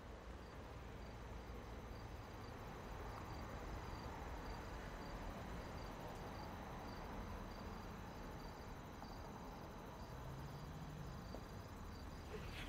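Crickets chirping faintly and steadily, a short high chirp about twice a second, over a low even hiss.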